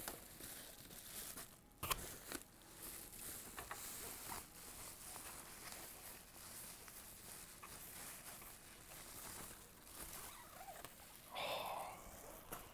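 Faint rustling and crinkling of a thin white plastic sleeve being pulled off an electric guitar in its shipping box, with a sharp click about two seconds in.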